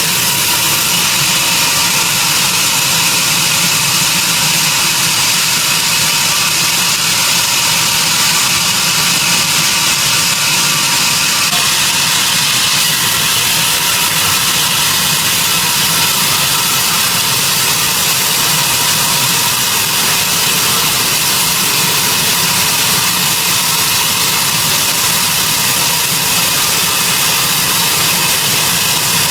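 Sawmill machinery running steadily, a loud, even mechanical noise, its tone shifting slightly about twelve seconds in.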